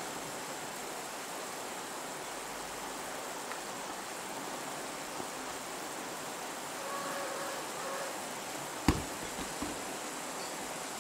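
Steady outdoor background hiss, with a faint pitched sound about seven seconds in and a single sharp knock about nine seconds in, followed by two softer ones.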